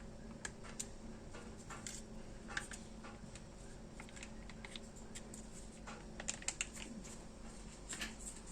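Light, irregular clicks and taps of plastic being handled, such as a liquid detergent bottle and its cap at the washing machine tub, with a faint steady hum underneath.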